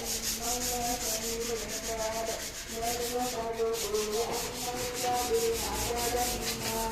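Power sander working over iron safety guard parts: a steady motor whine that wavers slightly in pitch as pressure changes, over a fast, even scraping pulse of abrasive on metal.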